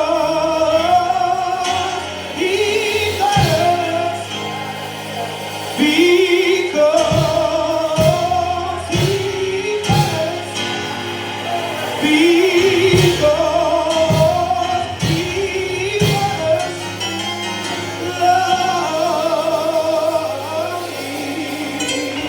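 Gospel worship music: a voice singing long, wavering held notes in phrases over sustained instrumental accompaniment.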